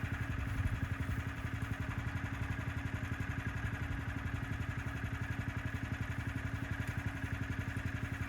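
An engine idling steadily, with an even, rapid pulse.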